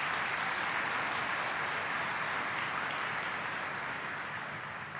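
Large audience applauding steadily, tapering off near the end.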